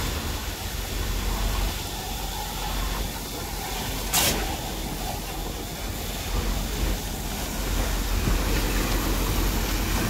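Steady low engine rumble with a hiss over it, from concrete-pumping machinery running, and one sharp knock about four seconds in.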